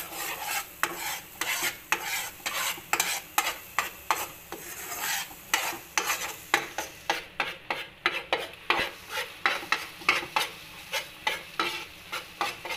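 Stainless steel slotted spatula scraping and knocking against a nonstick frying pan at about two or three strokes a second, chopping scrambling eggs into small pieces while they sizzle in hot oil.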